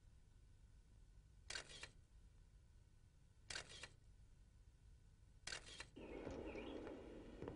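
Camera shutter clicks, three of them about two seconds apart. About six seconds in, a faint steady background sound sets in.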